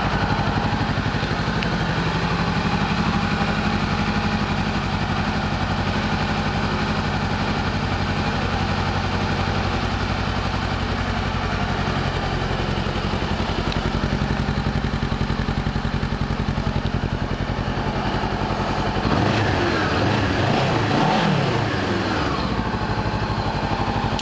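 2016 Honda CBR500R's parallel-twin engine idling steadily through an aftermarket Yoshimura exhaust, revved a few times in quick rises and falls about nineteen seconds in before settling back to idle.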